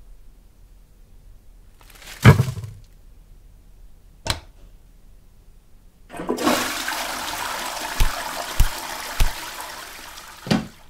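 A toilet flushing: water rushes for about four and a half seconds, with three short knocks during it and a thump as it ends. Before it come a sharp thud about two seconds in and a short click about four seconds in.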